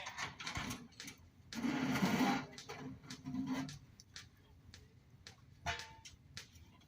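Scattered clicks and knocks of car parts being handled and fitted during hand assembly of a Ford Model T, with a brief burst of voices about a second and a half in.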